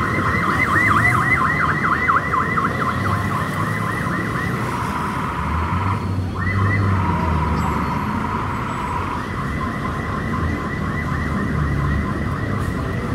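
Emergency vehicle siren in a rapid yelp, several sweeps a second, smoothing out and dipping briefly about six seconds in before yelping again, over low traffic rumble.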